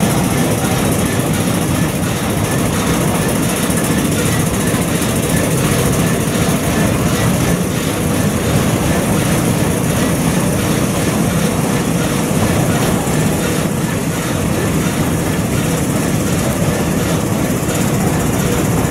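Steam engine running steadily: a fast, even chuffing over a low rumble.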